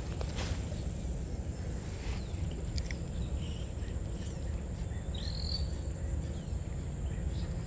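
Outdoor waterside ambience: steady low rumble with a thin, steady high-pitched insect drone. A short rising bird chirp comes about five seconds in, and there are a few faint clicks.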